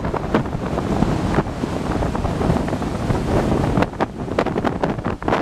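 Hurricane wind buffeting the microphone in gusts, with storm surf breaking behind it.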